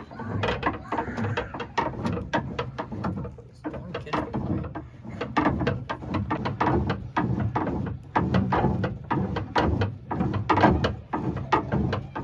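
Pickup truck's under-bed spare tire winch being cranked with the lowering rod, its mechanism clicking and ratcheting in a rapid, uneven series as the spare lowers to the ground.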